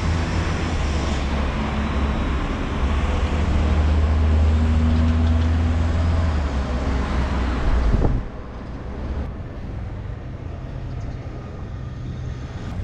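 Road traffic noise: a motor vehicle running close by on the street, a steady rumble with wide hiss, which cuts off sharply about eight seconds in, leaving quieter traffic ambience.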